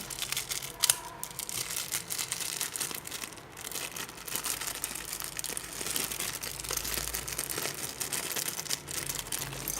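Homemade slime being squeezed and stretched by hand, giving a run of small wet crackles and pops, with one sharper click about a second in.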